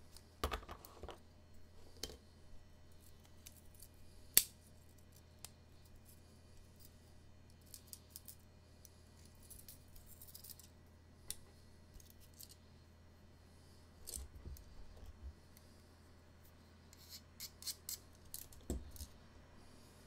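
Scattered metallic clicks and snicks of a Leatherman Signal multitool being handled, its tools opened and closed, with one sharp click about four seconds in, over a steady low hum.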